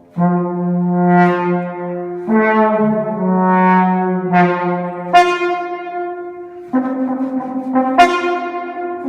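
Instrumental ensemble music: a slow series of sustained chords. A new chord comes in with a sharp attack every one to three seconds, at about five changes in all, and each is held before the next.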